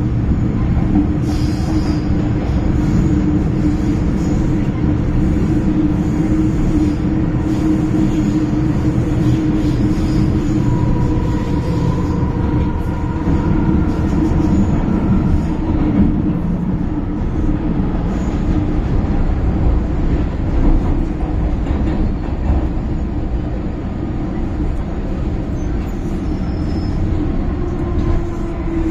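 MTR M-Train electric multiple unit heard from inside the car while running: a steady rumble of wheels on rail with a droning motor tone. The sound eases toward the end as the train draws into a station.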